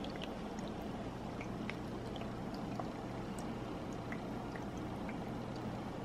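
doTERRA ultrasonic essential oil diffuser running: a faint, steady watery gurgle with small, irregular ticks scattered through it.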